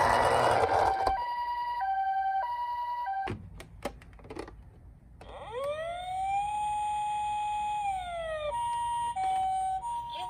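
Japanese ambulance two-tone "pee-poh" siren alternating between two pitches. A few seconds in it breaks off with a few clicks and switches to a single wail that rises, holds and falls, then the two-tone pattern resumes near the end. It follows a loud rushing noise in the first second.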